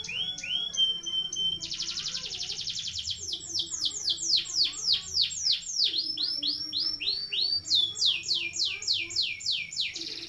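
Domestic canary singing a long rolling song: a few rising whistled notes, then a rapid trill, then a long run of repeated down-slurred notes at about three a second.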